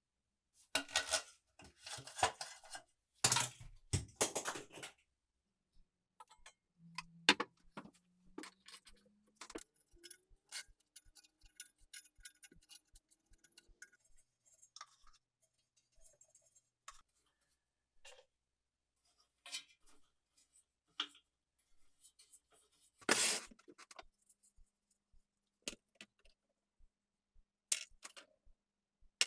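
Metal parts of a rusty oil lamp being handled, with scattered clinks and scrapes and a few louder knocks near the start and about two-thirds of the way in. A short squeak rises in pitch about seven seconds in.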